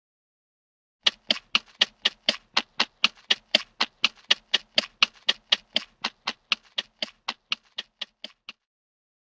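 Temple blocks knocked in a fast, even run of about four strikes a second: the classic Hanna-Barbera cartoon running-feet effect. The knocks start about a second in and grow quieter and slightly slower before stopping near the end.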